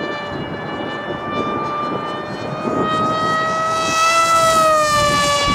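Electric motor and propeller of a foamboard FF-117V2 RC plane in flight, a steady high whine that rises slightly in pitch and then eases back near the end, over gusty wind rumble on the microphone.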